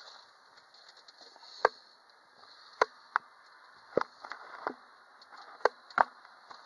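Sharp, irregular clicks and knocks, about seven of them a second or so apart, over a faint steady hiss: handling noise from a handheld camera being moved about.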